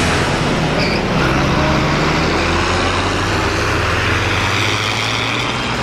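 International Harvester tractor's diesel engine running hard as the tractor drives past, a steady low drone with a noisy rush over it.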